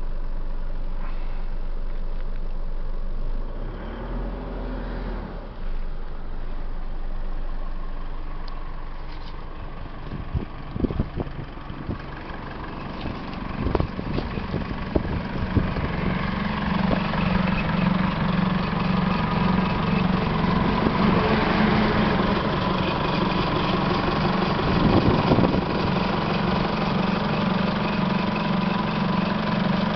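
Holden Colorado 4JJ1 3.0-litre four-cylinder turbo diesel idling. It is muffled at first, then louder and closer with an even diesel clatter from about halfway on, heard from the open engine bay. A few sharp knocks come partway through.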